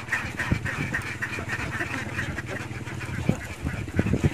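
A large flock of domestic ducks quacking all at once in a dense, continuous chatter, over a steady low hum. A few thumps come near the end.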